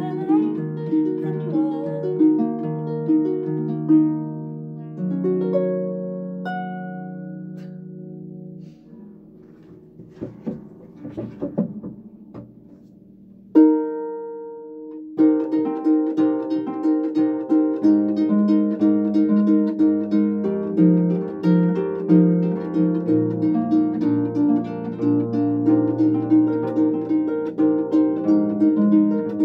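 Concert pedal harp played solo: ringing plucked chords that fade out about eight or nine seconds in, then a few seconds of near-quiet with faint knocks and rustles. A single chord sounds, and from about fifteen seconds in comes a fast, steady pattern of repeated plucked notes in the low and middle strings.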